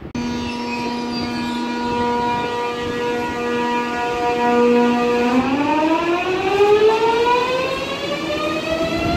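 Electric train's traction converter whining as it pulls away: several steady tones held for about five seconds, then the whole chord climbs smoothly in pitch as the train accelerates.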